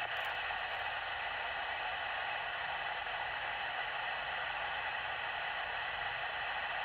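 Radio receiver giving out a steady static hiss with no station audio coming through.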